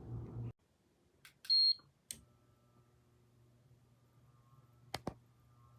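A single short, high-pitched electronic beep about a second and a half in, with a few sharp clicks around it and a low steady hum underneath.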